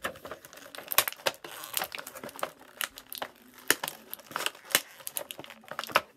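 Clear plastic action-figure packaging being handled and pried open, giving many irregular sharp crackles and snaps.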